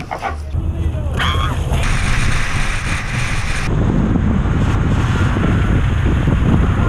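Wind buffeting the camera microphone as the open pickup truck bed moves down the road, a steady low rumble. There is a short shout about a second in and a couple of seconds of hiss in the middle.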